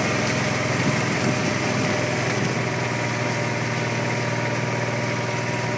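An engine running steadily at one constant pitch.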